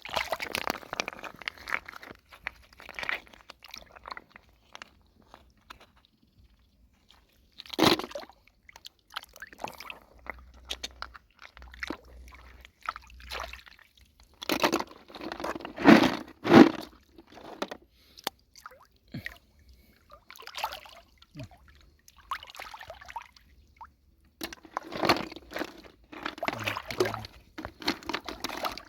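Shallow lake water sloshing and splashing in irregular bursts with crunchy scraping, as hands grope in the water and mud for snails and clams; the loudest splashes come about halfway through.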